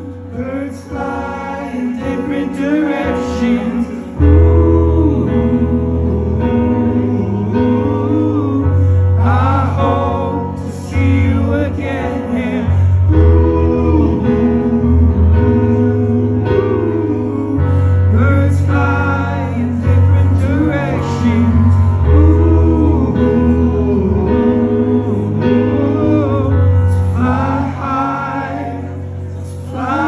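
A man singing live into a microphone over guitar accompaniment, with long held notes. A deep, steady bass comes in about four seconds in and makes the music louder.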